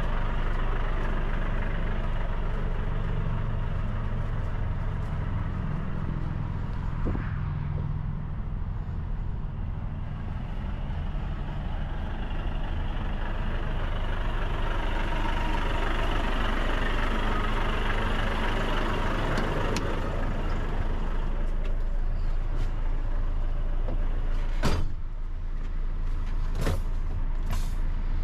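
Volvo FH540 truck's 13-litre six-cylinder diesel running steadily, with a few short sharp clicks near the end.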